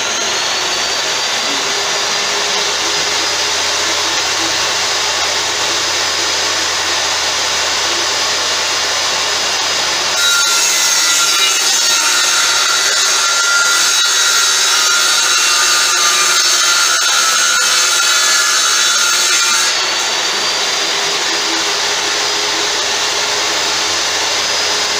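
A power tool or workshop machine running steadily. A brighter, higher whine joins about ten seconds in and cuts off abruptly about ten seconds later.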